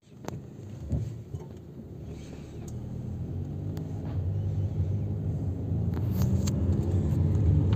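Car engine and road noise heard from inside the cabin, growing steadily louder as the car pulls away and gathers speed.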